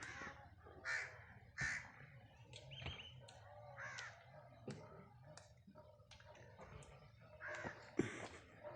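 Crows cawing repeatedly in short separate calls, the last ones near the end, with a few short sharp knocks in between.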